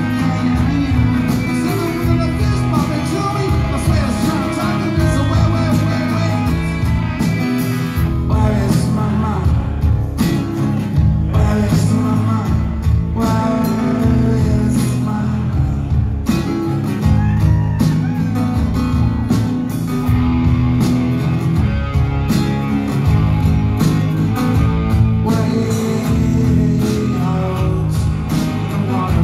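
A rock band playing live through a concert PA: acoustic and electric guitars, bass and drums, with a man's voice singing at times.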